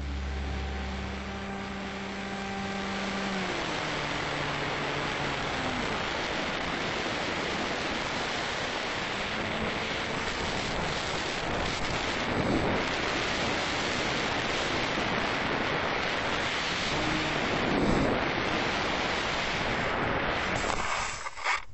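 Steady rush of airflow and wind noise on a small camera mounted on a radio-controlled model plane in flight, while background music fades out over the first few seconds. A short burst of noise comes near the end as the plane comes down over the snow, then the sound cuts off suddenly.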